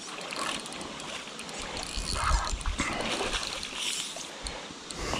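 Water splashing irregularly as a hooked shortfin eel thrashes at the surface on the fishing line.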